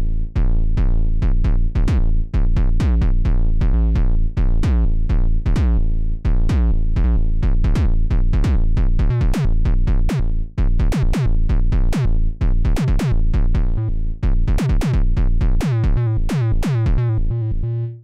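Native Instruments Massive X software wavetable synthesizer playing its "Anti Sight" bass preset: a fast, rhythmic run of short notes, each with a sharp plucky attack over a heavy, steady low bass. The notes shift higher near the end, and the sound cuts off suddenly.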